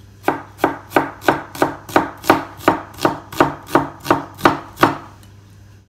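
A kitchen knife chopping onion on a cutting board: a steady run of about fifteen sharp strokes, roughly three a second, stopping about five seconds in.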